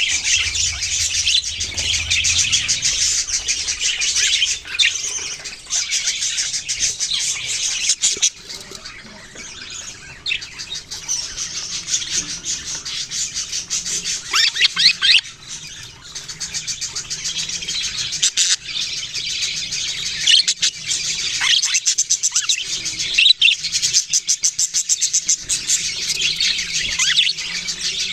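Flock of budgerigars chirping and chattering in a dense, rapid stream of high twittering calls, thinning briefly around ten seconds in.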